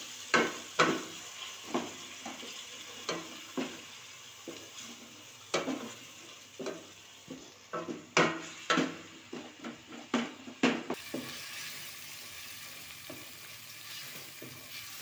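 Wooden spoon stirring tomatoes, garlic and ginger in an aluminium pot, knocking and scraping against the metal at irregular intervals, over a steady sizzle of the frying gravy. The knocks thin out after about eleven seconds, leaving mostly the sizzle.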